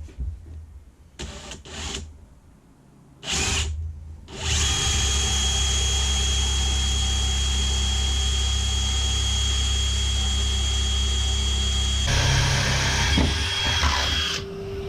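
A few short knocks, then a power drill starts about four seconds in and runs steadily for about ten seconds, re-drilling bolt holes through a wooden workbench. Its sound shifts a little near the end, then it stops.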